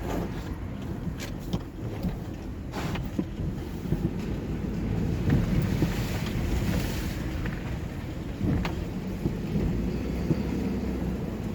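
Vehicle driving, with a steady low road and engine rumble from inside the cab and a few brief knocks or rattles, the clearest about three seconds in and another near the end.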